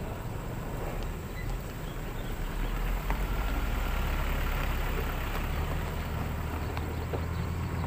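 Diesel engine of a Caterpillar 120H motor grader running steadily at working speed, growing louder about three seconds in, with small motorcycles passing close by.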